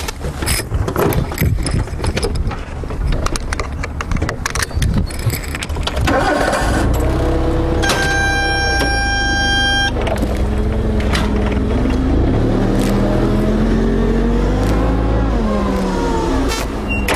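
LPG forklift engine running and revving as the forklift drives off, its pitch rising and falling, after several seconds of rattling and knocking. A steady high tone sounds for about two seconds in the middle.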